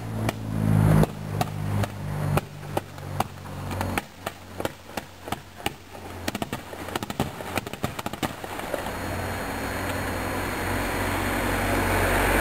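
Maltese ground fireworks (nar tal-art) going off: sharp bangs about two a second, then a rapid crackling flurry, then a steady hiss that grows louder near the end.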